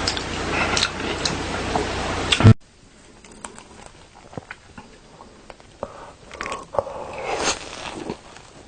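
Close-miked eating: loud crunchy biting and chewing for the first two and a half seconds, cutting off suddenly, then quieter chewing with scattered wet mouth clicks and smacks.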